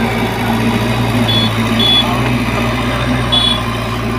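JCB 3DX backhoe loader's diesel engine running steadily as the machine manoeuvres, with a few short, high beeps at irregular intervals.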